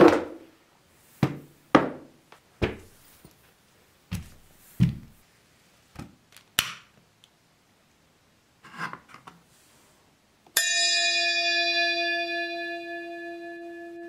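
A run of soft thumps and knocks, about a dozen over the first seven seconds, the first as a foam yoga mat is unrolled flat onto a wooden floor. About ten and a half seconds in, a bell-like metal tone is struck once and rings on with one steady low note and many higher overtones, slowly fading.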